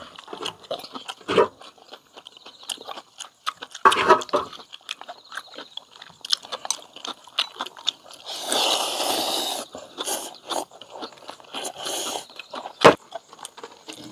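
People eating ramyeon: noodle slurping and chewing with small clicks of chopsticks and bowls. There is a long slurp about eight seconds in, a shorter one around twelve seconds, and a sharp knock shortly after.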